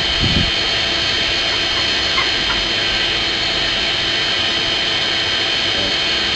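Forge air blower running steadily: a loud, even rush of air with a faint whine, blowing the fire while the metal heats.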